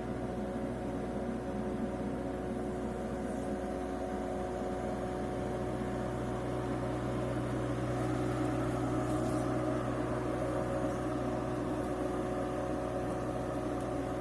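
Bobcat E85 excavator's diesel engine running steadily while the machine is worked, its low drone growing louder about four to five seconds in.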